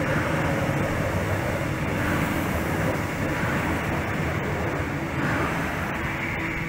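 Queensland Rail electric suburban train running past directly beneath, a steady rumbling running noise that eases slightly near the end as the last cars draw away.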